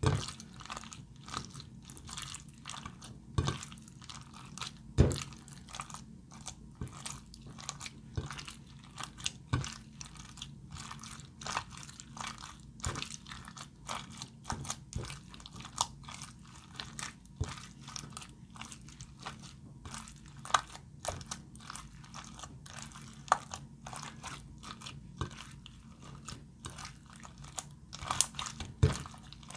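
Glossy slime being squished and kneaded by hand, giving a dense, irregular run of small wet clicks and pops, with a few louder snaps about five seconds in and near the end.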